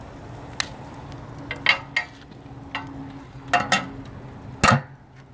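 Steel firebox door and its latch lever on a wood-fired boiler being worked by hand: a string of sharp metal clanks and clinks with a short ring, the heaviest near the end, over a steady low hum.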